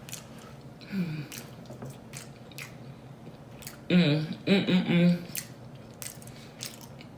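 Close-miked chewing with wet mouth clicks and lip-smacking through a mouthful of food, and a short vocal sound about four seconds in.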